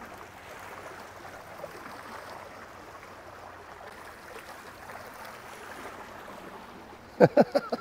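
Steady wash of sea water along the shore. A few short, loud sounds come about seven seconds in.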